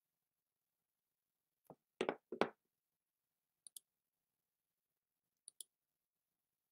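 A few faint double clicks, roughly two seconds apart, with a louder pair of knocks about two seconds in; otherwise near silence.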